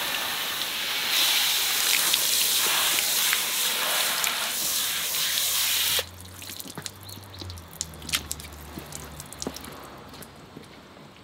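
Water from a hose nozzle spraying onto a car's bodywork: a steady hiss that stops suddenly about six seconds in. After it, quieter scattered drips and small ticks of water running off the wet panels.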